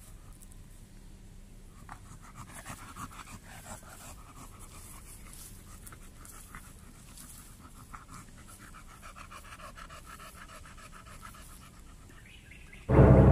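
American bully dog panting in quick, regular breaths, winded from a walk in the midday heat. Loud music cuts in abruptly near the end.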